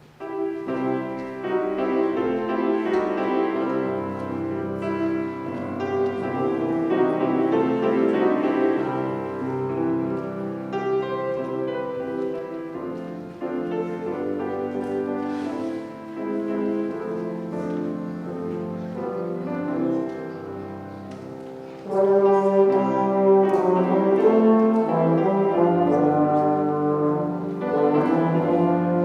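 Instrumental music with sustained brass chords and piano, starting suddenly and getting louder about 22 seconds in.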